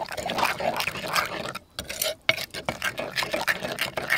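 Metal spoon stirring and scraping a wet chili-garlic-lime dipping sauce around the inside of a mortar, a busy run of wet scrapes and light clicks with a short pause about halfway through.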